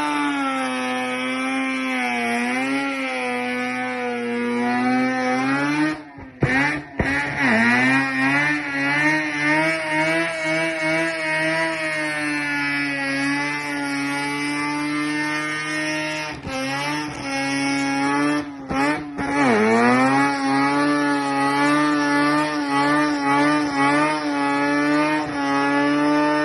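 Rotary engine held at high revs during a burnout, the note wavering slightly. The revs drop off sharply about six seconds in and again near nineteen seconds, then climb back up.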